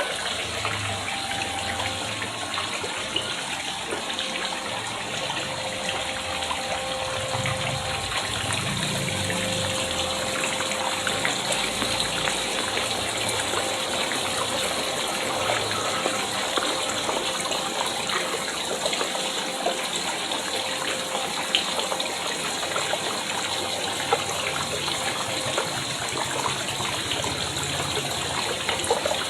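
Water pouring steadily into a pond from a small fall, splashing continuously, with a faint steady hum underneath.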